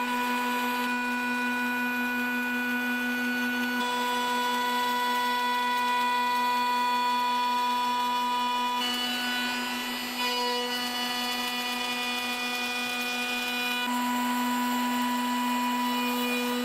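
CNC router spindle running at speed with a 30mm cutter, milling pockets in Kauri pine: a steady high whine with the hiss of the cutter chipping wood. The pitch and level shift slightly a few times.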